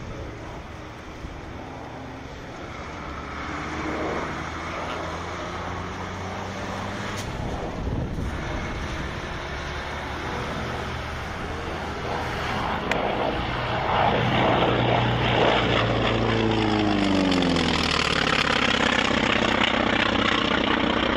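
North American T-28 Trojan's radial piston engine and propeller droning as the plane flies by, growing louder about two thirds of the way through, with the pitch sliding down as it passes.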